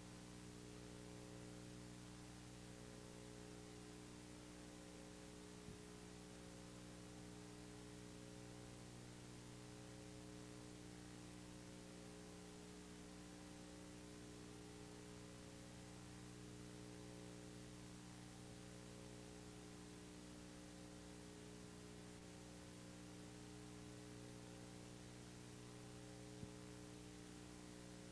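Near silence: a steady low electrical hum with faint hiss, and two faint ticks, one about six seconds in and one near the end.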